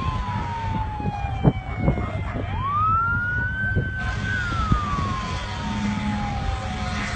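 A siren wailing in a slow rise and fall: the pitch climbs quickly, holds briefly, then slides down over about three seconds, and this happens twice. It sounds over a steady low rumble, with a few short knocks about a second and a half in.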